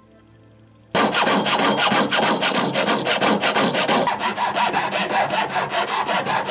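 Jeweller's piercing saw cutting silver in quick, even strokes, starting suddenly about a second in with a thin high ringing from the blade. A few seconds in it gives way to a flat hand file rasping across the silver in rapid strokes.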